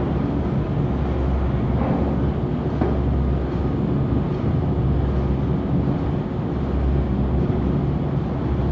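Automatic open-box erecting machine for corrugated boxes running steadily: a continuous mechanical hum and rumble with a few light clicks about two and three seconds in.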